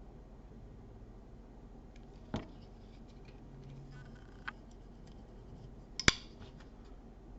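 Civivi Incite folding knife's blade being worked open and shut to test its action: a click about two and a half seconds in and a sharper, louder snap about six seconds in, with faint small clicks between.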